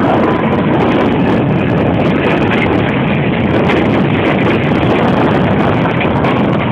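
Steady, loud travel noise from inside a moving vehicle, with wind buffeting the microphone.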